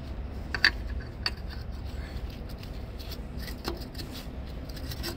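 A few light metallic clicks and taps, the loudest about half a second in, as a coolant thermostat is handled and seated in its housing, over a steady low hum.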